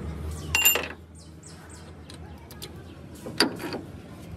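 Metal clinking and scraping, like hand tools and parts being handled: a short clank with a ringing note about half a second in, light ticks after it, and another clank near the end, over a low steady hum.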